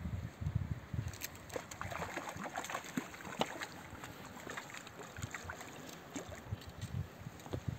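Small hooked fish splashing and thrashing at the water's surface on the end of the line, a quick run of irregular little splashes.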